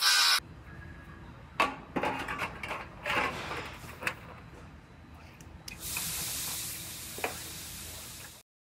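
A narrow pneumatic belt sander grinding the spot-weld flange of a sheet-metal body panel cuts off just after the start. Then come scattered knocks and clicks of the sheet-metal panel being handled, and a steady hiss lasting about two and a half seconds near the end.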